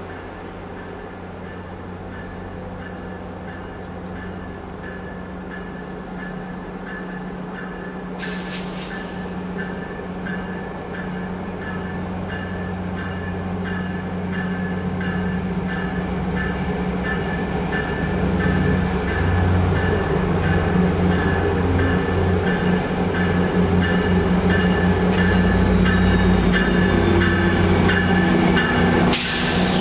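EMD F59PH diesel-electric locomotive hauling a Metrolink commuter train, approaching and pulling into the station, its 12-cylinder diesel drone growing steadily louder. A bell rings about twice a second, and there is a short burst of hiss about eight seconds in and again near the end.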